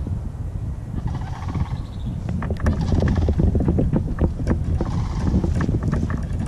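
Wind rumbling on the microphone, with a run of quick clicks and rattles from about two to four seconds in as a fishing reel casts a lure, and a few short animal calls in the background.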